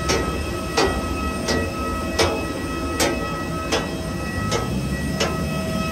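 Steady multi-tone whine of a parked jet airliner on the apron, with sharp footsteps clicking evenly at about three every two seconds.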